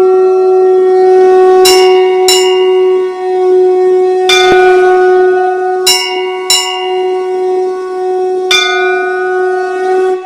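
A conch shell blown in one long steady note, with a bell struck six times over it at uneven intervals. The note fades out at the very end.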